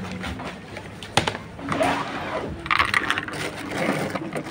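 A chest freezer being opened and rummaged in: a sharp knock about a second in, then bursts of rustling and scraping from the lid and from the frozen packs being handled.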